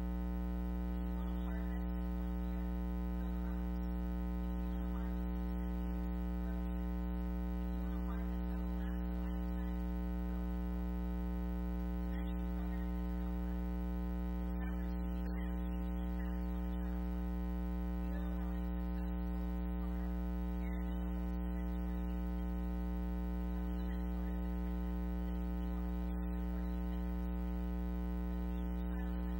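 Steady electrical mains hum with a buzzy stack of overtones, drowning out a woman's voice at a podium microphone, which is heard only faintly beneath it.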